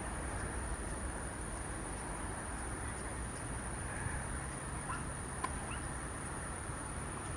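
Steady outdoor background noise with a thin, steady high-pitched tone, and a few faint, short bird chirps about five seconds in.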